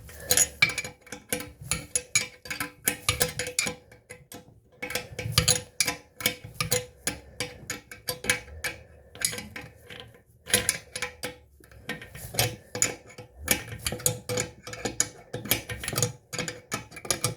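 Ratchet wrench clicking in quick runs with short pauses as the toilet tank-to-bowl bolts are tightened a little on each side in turn, drawing the tank down evenly onto its new seal.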